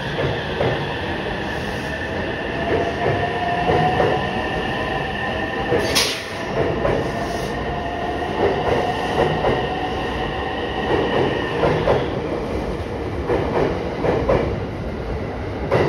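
Electric commuter train pulling out of a station platform. A motor whine rises slowly in pitch while the wheels clack in groups over rail joints, with one sharp click about six seconds in.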